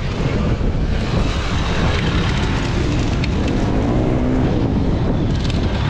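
Enduro dirt bike engines running and revving up and down in pitch as the bikes come down a rocky slope.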